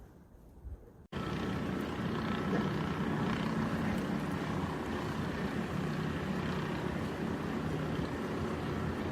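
A motor running steadily, starting abruptly about a second in after a quiet moment.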